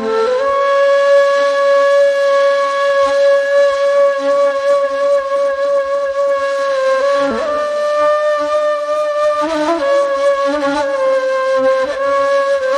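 Ney, the Turkish end-blown reed flute, playing a slow improvised taksim in makam Segah: long held, breathy notes that move to a new pitch a few times with short slides between them.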